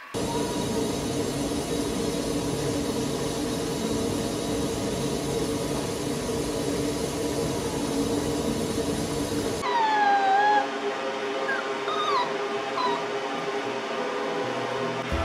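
A steady rushing noise with a low hum runs for the first ten seconds and then cuts off. After that a small poodle whines: one long falling whine, then three short whimpers over the next few seconds.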